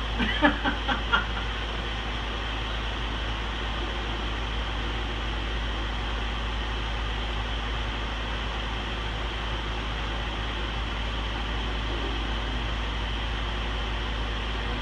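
Microwave oven running with a steady hum and whir. A few short blips come in the first second.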